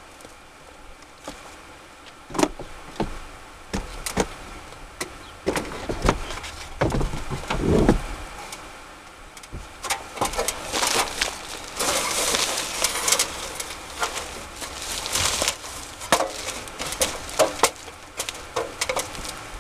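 Scattered knocks, taps and scraping from a Mastercool evaporative cooler's housing being handled and shifted in its wall mount, with a few heavier thumps around six to eight seconds in and a denser stretch of scraping and rattling about ten to thirteen seconds in.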